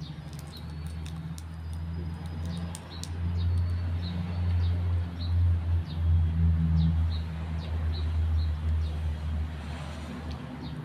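An engine running nearby, a low hum that swells through the middle and eases off near the end. A small bird chirps repeatedly over it.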